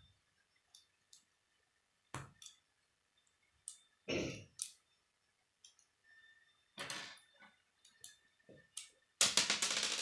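K'nex plastic rods and connectors clicking and snapping together as a model is assembled by hand, with loose parts handled on a wooden table: scattered sharp clicks, then a loud rapid clatter of clicks about nine seconds in.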